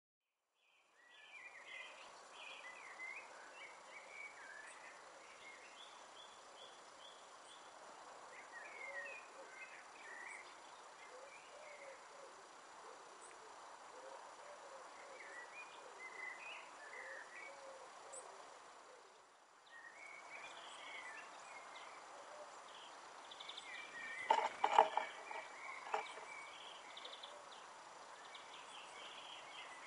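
Garden ambience with small wild birds chirping and calling on and off throughout. About 25 seconds in comes a short, louder rustling burst, the loudest thing here.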